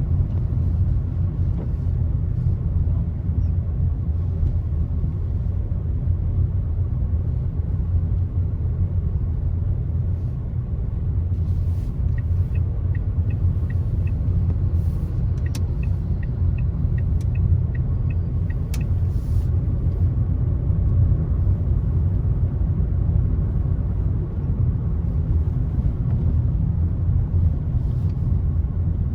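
Car driving along a road: a steady low rumble of engine and tyre noise. About halfway through, a run of even ticks, roughly two a second, goes on for around six seconds.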